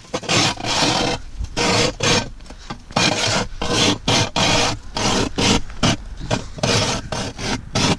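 Manual hand ice auger's blades shaving through thick lake ice as it is cranked round, a rhythmic rasping scrape of about two to three strokes a second.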